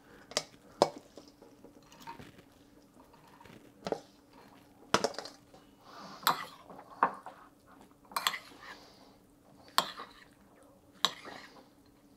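Metal spoon clinking and scraping in a small ceramic bowl as cooked rice is scooped in and stirred; about nine sharp, separate clinks with soft scraping between them.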